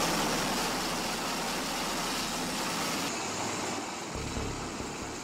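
Bell Boeing V-22 Osprey tiltrotor running, its turboshaft engines and spinning proprotors making a steady, rushing noise. About three seconds in, the sound changes and loses its highest part, and a few low thumps follow about a second later.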